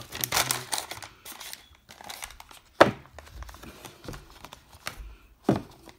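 Plastic wrap crinkling as it is handled, then two sharp knocks, the first and loudest about three seconds in and the second near the end.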